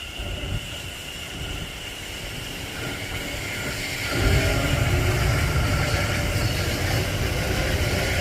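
Passenger train approaching through the station: a steady high whine over a growing rumble that gets suddenly louder about four seconds in as the train draws close.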